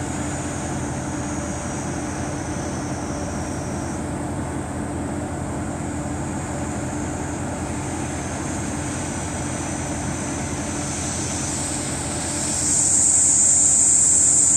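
Kominato Railway KiHa 200 diesel railcar idling at a standstill, a steady low engine drone. About twelve seconds in, a loud high-pitched insect buzz sets in and becomes the loudest sound.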